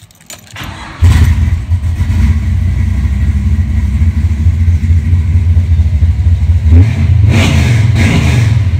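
Big-block V8 of a 1969 Chevrolet Chevelle running, heard from inside the car: a steady, loud low idle that comes in about a second in, picking up briefly near the end as if the throttle were blipped.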